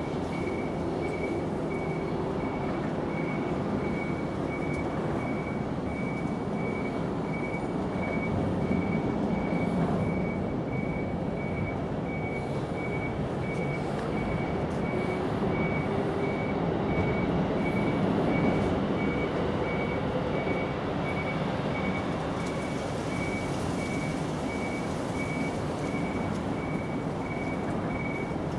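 A vehicle's reversing alarm beeping steadily, a little more than once a second, over a steady low engine rumble.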